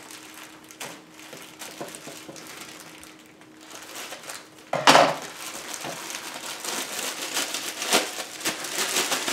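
Plastic packaging bag being opened: a few light scissor snips, then a sudden loud rip about five seconds in, followed by continuous crinkling as the bag is pulled apart.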